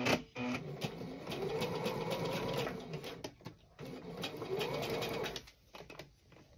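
Sewing machine stitching a folded linen handle tab at a fast, even rate. It runs in two stretches with a short pause about three and a half seconds in, then stops about five and a half seconds in.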